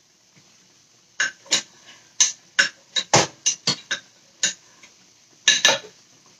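Kitchen utensils clinking and knocking against dishes on a counter: about a dozen short, sharp clicks at uneven spacing, with a pause near the end.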